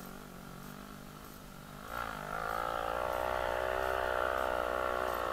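Quad (ATV) engine running at low speed, then revved up sharply about two seconds in and held at a steady higher speed.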